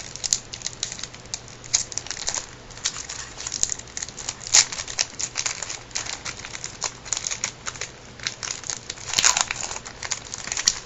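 Baseball card pack wrapper crinkling and tearing as a pack is opened by hand: a run of crackles and clicks, loudest about four and a half and nine seconds in.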